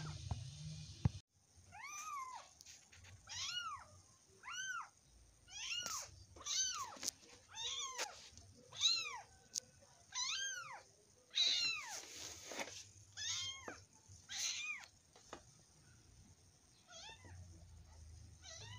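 Kitten mewing repeatedly: about a dozen high-pitched calls, each rising then falling, roughly one a second, stopping a few seconds before the end.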